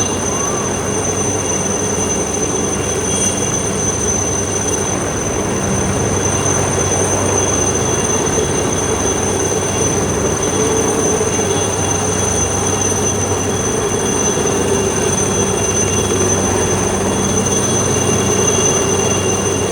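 Train running steadily, a continuous rumble with a steady high whine over it.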